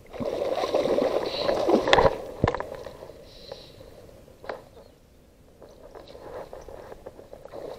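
Water splashing as a pike takes a fly at the surface, in a burst of about two seconds with a couple of sharp knocks near its end, then a single knock and a quieter stretch.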